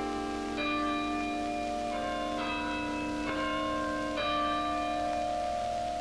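Tower chime bells ringing out a slow tune, a new bell struck about once a second, each note ringing on over the last.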